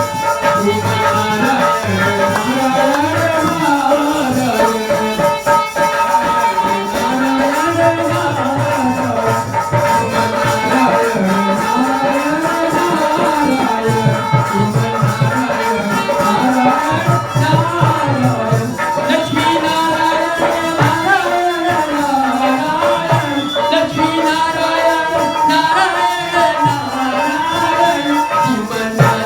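Devotional kirtan music: a rising and falling melody over steady held drone notes, with shaken rattles and a regular low beat.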